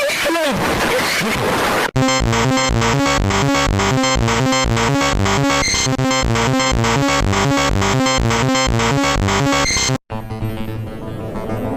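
Synthesized emergency-alert alarm tones: sweeping tones at first, then from about two seconds in a dense, rapidly pulsing electronic pattern that cuts off abruptly near the end, where a rising sweep begins.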